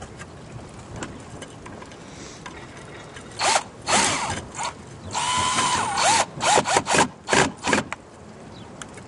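Cordless drill driving a 4-inch screw through a roof ridge cap tile into the ridge board. There are a few short bursts about three and a half seconds in, then a longer run in the middle with the motor pitch dipping under load, then several quick bursts as the screw is snugged down.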